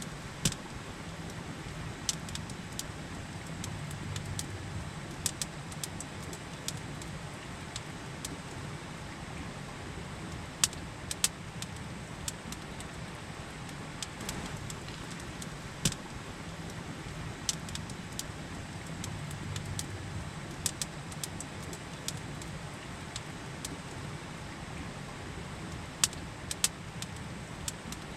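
Campfire crackling, with irregular sharp pops, a few standing out loudly, over the steady rush of a river.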